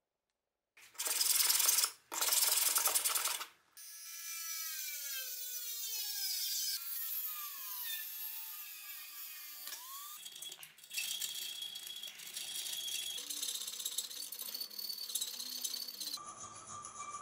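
Two brief loud bursts of grinding noise, then a handheld rotary tool with a cut-off disc cutting a metal plate, its whine sinking slowly in pitch as the disc bites, followed by steadier cutting noise.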